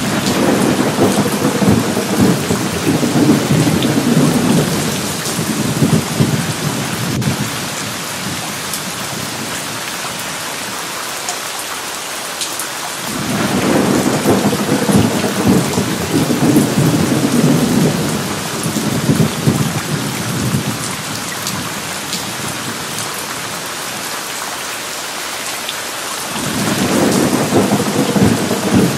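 Steady rain with three long rolls of thunder: one at the start that dies away after about seven seconds, another about thirteen seconds in that lasts about seven seconds, and a third starting near the end.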